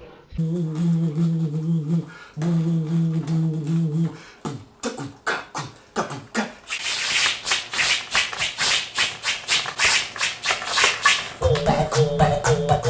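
Rhythmic music with a beat, in the manner of beatboxing: a pulsing low pitched pattern, then a run of fast clicking percussion that grows denser and brighter, then the pitched beat comes back near the end.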